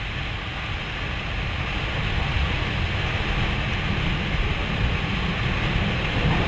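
Steady roar of a close stovepipe tornado, mixed with wind buffeting the microphone, slowly growing louder.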